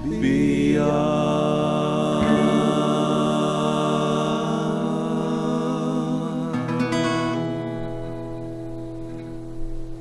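A band's closing chord on acoustic guitars, electric guitars and bass rings out and slowly fades. About two-thirds of the way through, the guitars move to a last held chord, with no drums.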